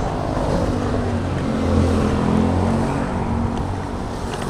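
Street traffic: motorcycle engines and road noise, with a low engine hum that swells in the middle as motorcycles pass.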